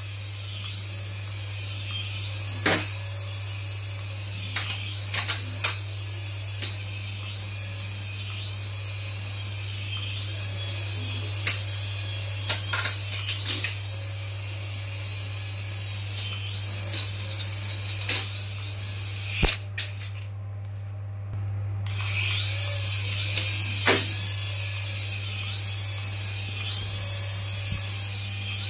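Small rechargeable toy RC helicopter with twin stacked rotors, its little electric motors whining in flight, the pitch rising and falling over and over, with occasional sharp knocks. The whine cuts out for about two seconds roughly two-thirds through, then starts again.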